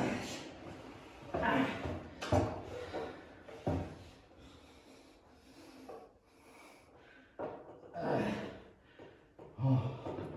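Irregular knocks, bumps and rubbing from a metal stepladder and the wooden board on top of it as a man's body shifts and turns around it, with a few hard breaths among them.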